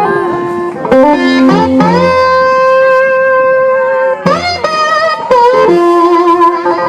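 Live blues-rock band playing, led by an electric guitar holding long notes that it bends up into.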